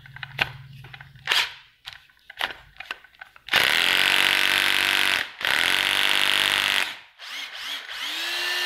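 Makita cordless drill-driver: a few light clicks as its clutch collar is turned, then the motor is run three times in short bursts of a second or two, each cutting off quickly. On the last run the motor's whine rises in pitch as the speed trigger is squeezed, then holds steady.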